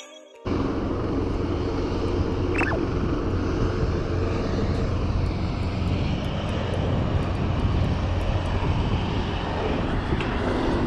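Steady outdoor rumble and rush, heaviest in the low end, starting about half a second in as the music cuts out. A short falling whistle sounds about two and a half seconds in.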